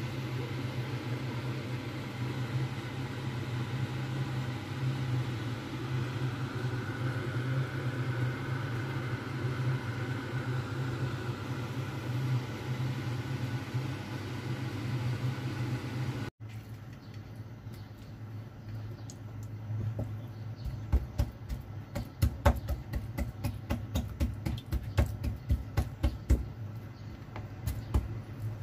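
A steady low electrical hum runs throughout. After a cut a little past halfway, a fork is jabbed repeatedly into pork shanks to tenderize them: sharp taps, several a second.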